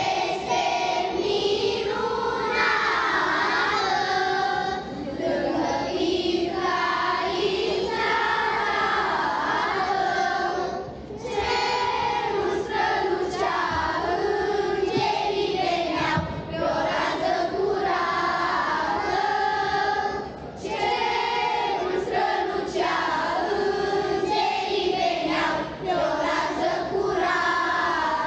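Children's choir singing a Christmas carol (colindă), in sung phrases with short pauses between them.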